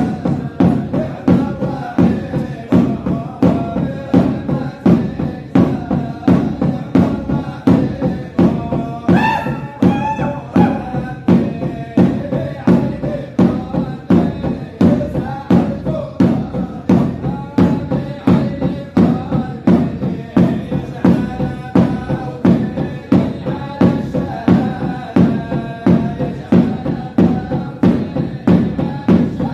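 Men's group chanting in a Sufi dhikr circle, a repeated chant of 'Allah' carried on a steady, even pulse of beats. A higher solo voice rises above the group about nine seconds in.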